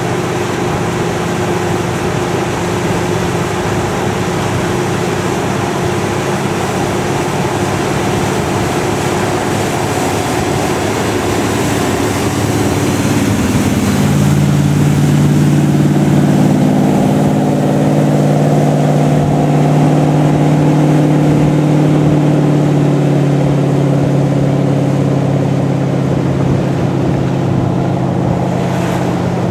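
1967 Century Arabian wooden runabout's inboard engine running at speed, over the rush of its hull and spray. About halfway through, the engine note drops in pitch as the boat passes close, then holds steady and slightly louder.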